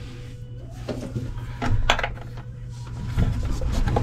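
White plastic bolt caps clicking and knocking against the base of an RV toilet as they are handled and pushed down over the floor bolts: a few light knocks, the sharpest about two seconds in.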